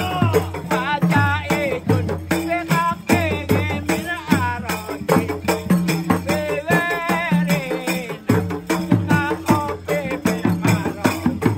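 Live Javanese gamelan music accompanying an ebeg horse dance. A wavering, ornamented melody sounds over busy struck percussion and drums, with sustained low gong-like tones underneath.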